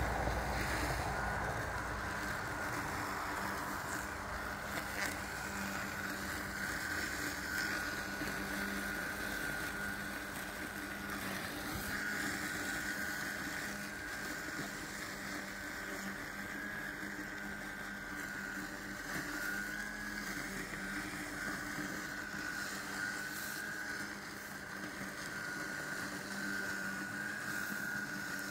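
Mammotion LUBA 2 robotic lawn mower running as it drives through long grass cutting a strip: a steady, slightly wavering high motor whine over a lower hum.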